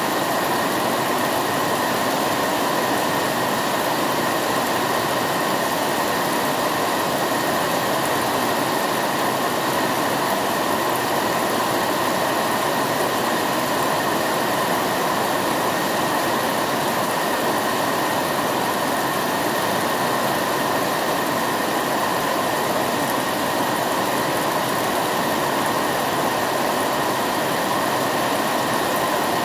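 Heavy rain falling steadily on trees and foliage, with water pouring off a roof edge: an even, unbroken hiss.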